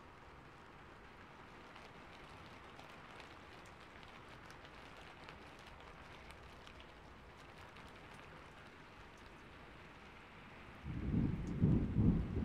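Steady rain hissing quietly, then a loud low rumble of thunder breaking in near the end.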